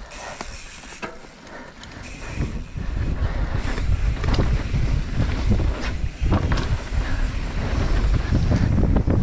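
Wind rushing over a helmet-mounted camera's microphone, with tyre rumble and scattered knocks and rattles from a mountain bike riding down a dirt trail. It grows louder about three seconds in.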